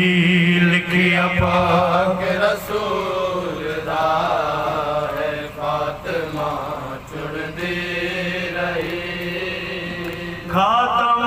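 A man chanting a marsiya, a Shia mourning elegy, in long melodic phrases into a microphone. A louder new phrase begins near the end.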